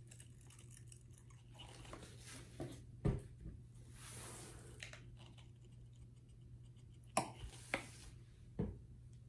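Faint handling of plastic paint squeeze bottles and a plastic cup: a light knock about three seconds in and several more between seven and nine seconds as bottles are set down and picked up, with a brief rustle around four seconds, over a low steady hum.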